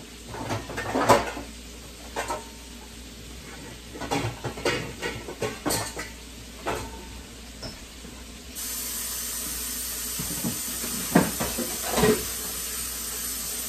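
Kitchen utensils and dishes clinking and knocking on the counter, a few scattered clicks over the first several seconds. About two-thirds of the way in a steady hiss starts suddenly, with two more knocks in it, and cuts off abruptly.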